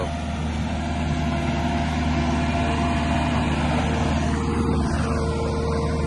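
JCB one-arm compact track loader's diesel engine running steadily while working its FAE mulcher head. About four seconds in, the high hiss fades, leaving the engine's steady drone.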